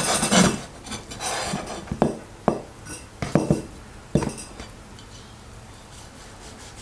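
Chinese cleaver cutting through the fat of a raw steak and knocking on a bamboo cutting board. There is a burst of chopping at the start, then about five sharp knocks of the blade on the board between two and four and a half seconds in, and it goes quiet after that.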